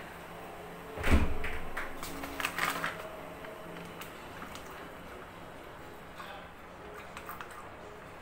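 Kitchen handling noises: one loud knock about a second in, then a few lighter clinks and knocks, after which only quiet room tone remains.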